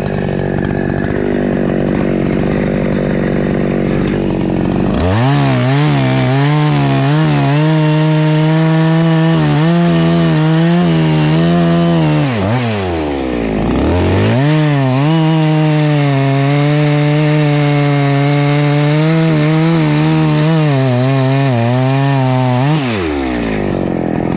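Husqvarna 288XP two-stroke chainsaw idling, then opened to full throttle for two long cuts of about seven and nine seconds, its pitch wavering under load and dropping back to idle between and after them. These are the two cuts of a face notch in a tree trunk.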